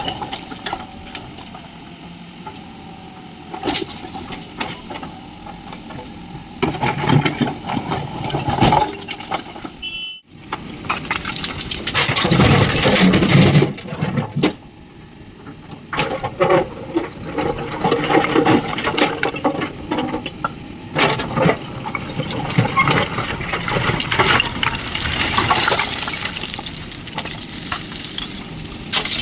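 Mahindra backhoe loader's engine working under load, with rushing and clattering as it loads a tractor trolley; the sound drops out briefly about ten seconds in.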